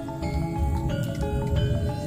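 Background music: a melody of short, stepping notes over a steady low beat.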